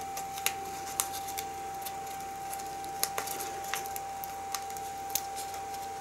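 Fingers picking at and peeling the backing off double-sided tape on a sheet of pink card: scattered small clicks and crackles, over a steady faint high tone.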